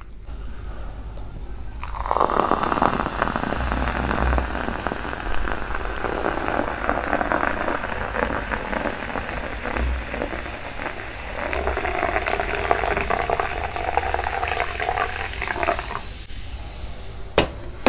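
Sprite soda poured from a can into a glass, the stream splashing and fizzing for about fourteen seconds before stopping. A single sharp knock near the end.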